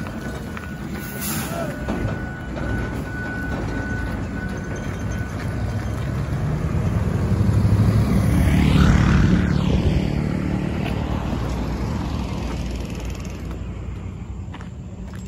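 Heavy trucks hauling loaded flatbed trailers drive by on a road, with their engines and tyres rumbling. The sound swells to its loudest about eight to ten seconds in, where a passing vehicle's pitch falls, and then fades away. A short hiss comes about a second in.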